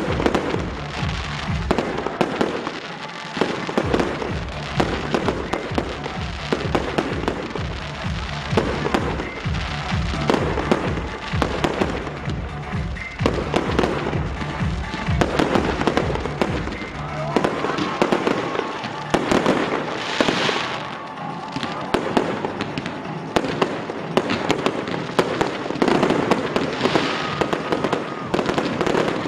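Fireworks display: aerial shells bursting in quick succession, many bangs and crackles, with music playing underneath.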